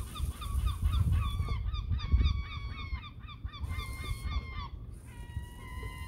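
Gulls calling: a rapid run of short, sharp calls, two birds overlapping at different pitches. About five seconds in this changes to a few longer, drawn-out, slightly falling calls.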